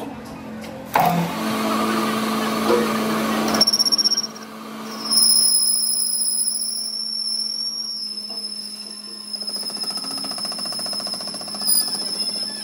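Metal lathe running with a steady hum while its cutting tool turns a steel camshaft part, peeling off curled chips: a noisy cutting sound from about a second in, then a high steady squeal from the tool from about five seconds on.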